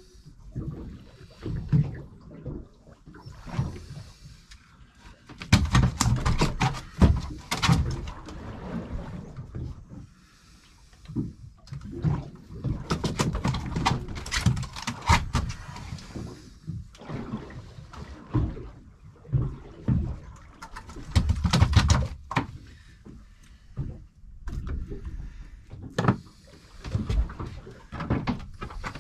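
Irregular knocks, clatters and thumps of hands handling things on a small boat's deck, coming in clusters over a low rumble.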